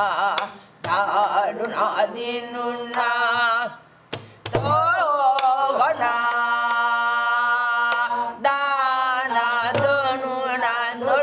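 Korean gueum, a wordless vocal melody sung in the traditional style, with wide slow vibrato, sliding pitches and one long held note midway, joined by a few low drum beats.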